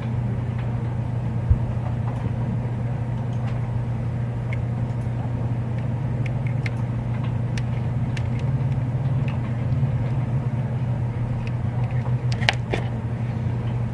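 A steady low hum, with scattered faint clicks and taps as small metal parts of a butane lighter are handled and worked with a small screwdriver; one sharper click near the end.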